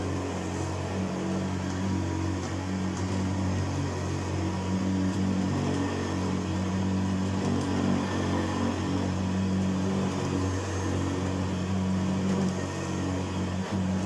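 1980 Hoover Senior Ranger U4014 upright vacuum cleaner running steadily, a low motor hum, as it is pushed back and forth over carpet.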